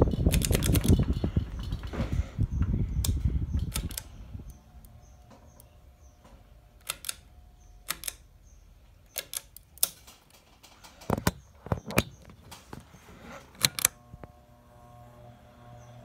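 Hampton Bay Minuet II ceiling fan: a loud rush of air from the fast-spinning blades drops away about four seconds in as the fan slows, leaving a faint motor hum. Sharp clicks of the pull-chain switch come about a dozen times as the chain is pulled through the speeds.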